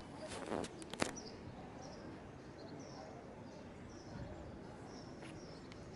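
Small birds chirping in short, high calls repeated every half second or so, over a steady background of city noise, with a couple of sharp knocks in the first second.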